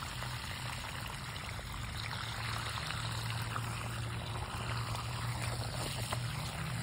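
Water pouring and trickling steadily onto soil around the roots of a mulberry tree as it is watered.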